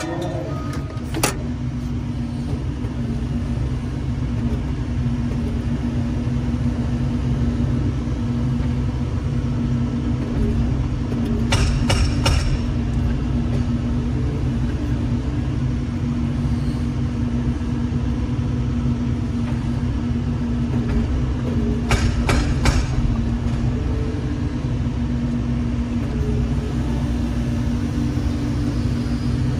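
Doosan 140W-5 wheeled excavator's diesel engine running steadily, heard from the cab, with a steady hydraulic hum over it. Twice, at about twelve and about twenty-two seconds in, there is a quick cluster of three sharp knocks.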